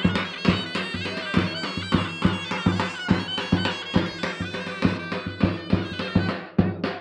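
Live Turkish folk dance music: a davul bass drum beating a steady rhythm of a little over two strokes a second under a shrill reed wind instrument playing a sustained, ornamented melody.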